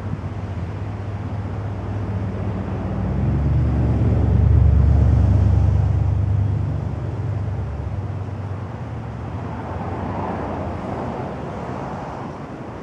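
Low engine rumble of a passing motor vehicle, swelling to its loudest about four to six seconds in and then fading, over steady outdoor wind noise.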